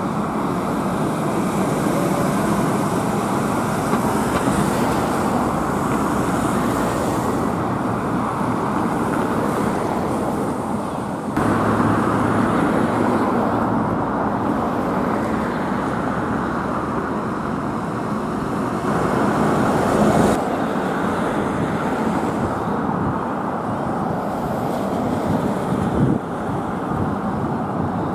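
Street traffic with buses driving by: a three-axle coach passing close, then a double-decker bus approaching, engine and tyre noise over a steady background of road noise.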